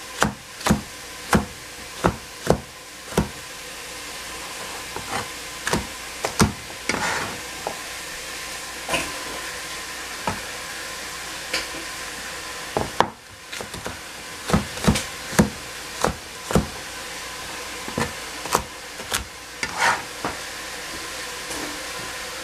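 A knife chopping yellow squash on a plastic cutting board, sharp knocks about one to two a second at first and sparser later, over a steady sizzle of vegetables frying in a pan.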